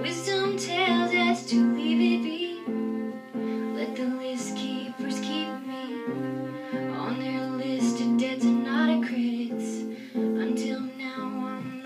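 Live band playing an instrumental intro: a violin bowing a melody with vibrato over guitar accompaniment.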